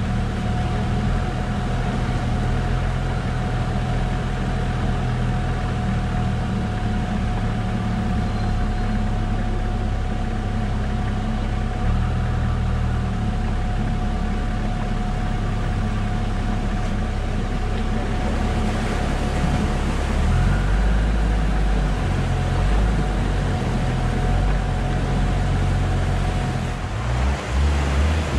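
Toyota Land Cruiser HZJ73's 1HZ straight-six diesel engine running at low revs as the truck crawls a muddy trail, a steady whine running over the engine note. Near the end the sound changes to rushing, splashing water as the truck fords a creek.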